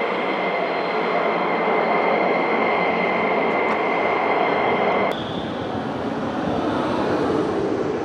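Jet engine noise on a flight line: a steady roar with a high, steady whine. About five seconds in it cuts to the duller rumble of road noise inside a moving car.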